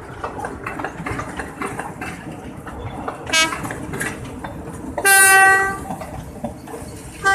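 PNR work train rolling past, its wheels clacking over the rail joints, with a horn sounding: a short toot about three seconds in, a longer loud blast about five seconds in, and another starting near the end.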